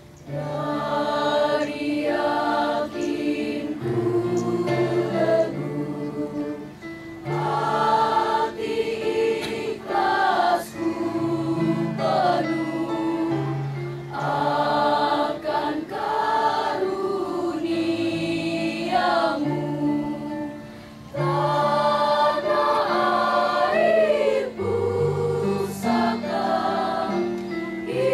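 A school choir of young teenagers singing a song in long held phrases, with a brief break between phrases.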